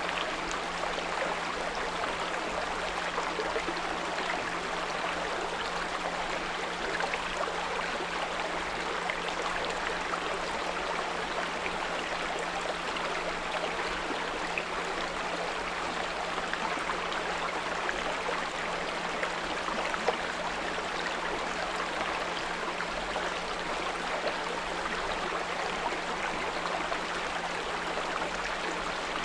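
A small brook running steadily over stones, with a steady low pure tone at 174 Hz mixed in beneath the water.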